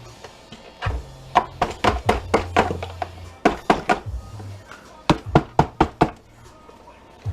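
Quick runs of sharp knocks and whacks as the plastic casing of a jump starter pack is struck to break it open. They come in three groups of several blows, over steady background music.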